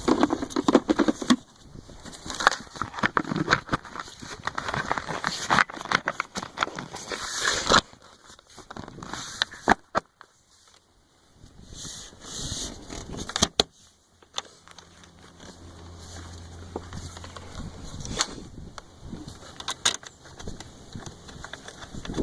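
Air-filter housing assembly being handled and fitted back into place in the engine bay: rattling and scraping, with several sharp clicks.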